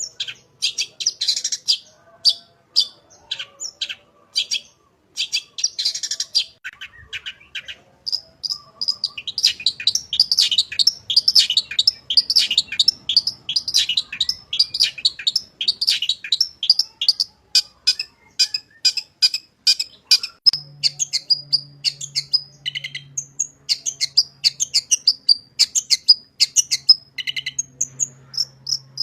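Long-tailed shrike singing a fast, sharp stream of chirps and trills laced with mimicked calls; short bursts at first, then after a brief pause about eight seconds in, an almost unbroken run.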